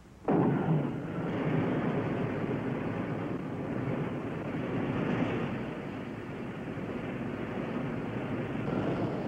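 A rocket sled's motor firing on the test track: a sudden loud start, then a steady rushing roar.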